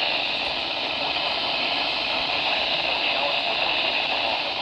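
Steady static hiss from a radio receiver tuned to an idle channel, heard through its speaker, unchanging throughout.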